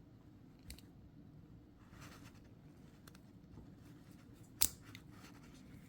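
Metal pick tool prying at a plastic connector housing, with small scrapes and light clicks and one sharp plastic click about four and a half seconds in.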